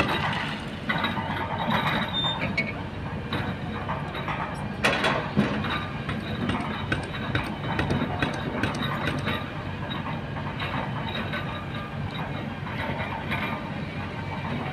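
Kobelco hydraulic excavator's diesel engine running steadily under load while it digs and swings, with the clatter and scrape of river stones in the bucket and a sharp clank about five seconds in.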